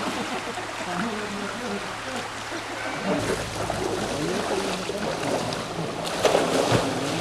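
Creek water running steadily at a swimming hole, with other people's voices chattering in the background and a louder burst of sound about six seconds in.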